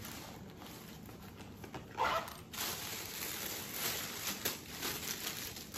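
Rustling and handling of a fabric travel bag and its contents as items are pulled out of it, with a short louder rustle about two seconds in and small clicks and crinkles after.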